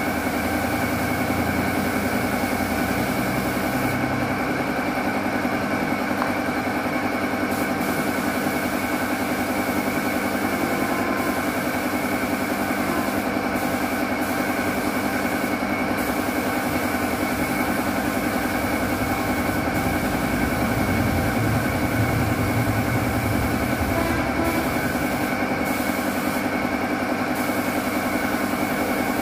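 An air compressor running steadily under the hiss of a spray gun spraying paint. About four seconds in the hiss drops away for a few seconds, and it cuts out briefly several more times later as the trigger is let go.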